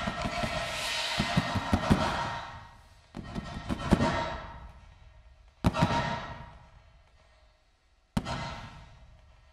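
Processed, reverberant sound design made from the sounds of hands and paint on window glass. A dense wash of noise with low thuds fades out, then three sudden hits about two and a half seconds apart each die away slowly.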